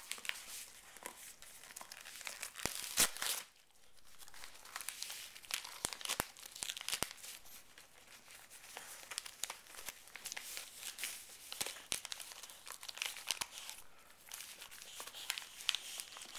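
A dog tearing and chewing shiny foil gift wrap, a dense run of irregular crinkles and rips, with the loudest crackle about three seconds in and a brief lull just after.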